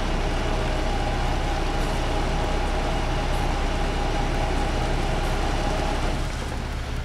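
Concrete truck's heavy diesel engine running steadily with a low rumble and a steady whine. It gets somewhat quieter about six seconds in.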